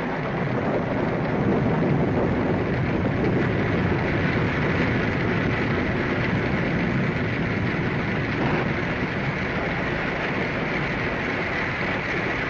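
Radio-drama storm sound effect: a steady, loud rush of wind and rain.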